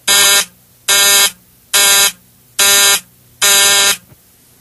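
Continuity-test buzzer powered by a 1.5-volt dry cell, sounding five short, even buzzes a little under a second apart as the far end of a wire pair is shorted and opened again. Each buzz marks a closed circuit, identifying the pair and confirming its continuity.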